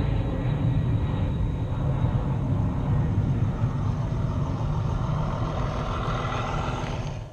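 A 1:20.3-scale model of a 1927 Brill Model 55 railcar running along garden-railway track. It makes a steady low rumble, and a higher running note grows louder over the last couple of seconds as it comes close. The sound cuts off suddenly at the end.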